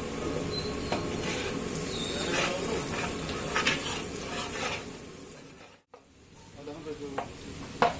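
Metal pots and serving utensils clinking and scraping over a steady background hum of street noise; the sound drops out briefly about six seconds in, then more sharp clinks follow.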